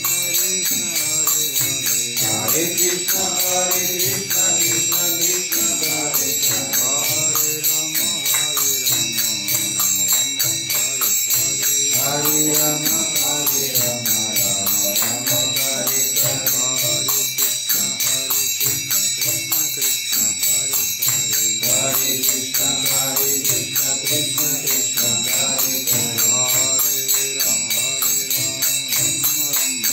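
Kirtan: a devotional chant sung to the steady, even beat of small hand cymbals (karatalas) ringing brightly throughout.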